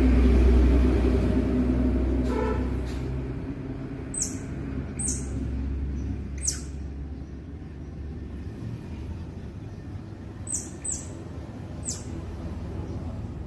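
Baby squirrels giving short, very high-pitched squeaks, about six of them scattered through, each dropping quickly in pitch. Under them runs a low rumble, loudest in the first few seconds and then fading.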